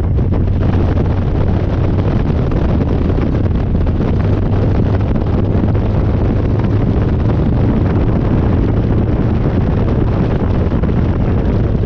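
Harley-Davidson Dyna's V-twin running at a steady cruise on a ride, with wind rushing over the microphone.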